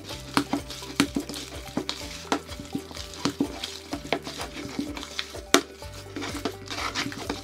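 A hand kneading a wet mixture of minced chicken, egg and flour in a plastic bowl: irregular squelches and sticky smacks. The loudest smack comes about five and a half seconds in.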